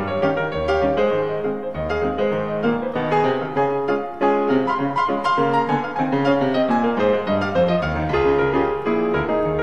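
Background piano music: a steady run of notes over a low bass note that repeats about once a second.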